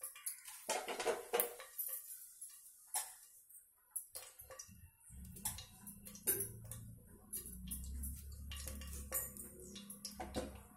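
Scattered clinks and knocks of kitchen dishes and utensils being handled. A low steady hum sets in about halfway through.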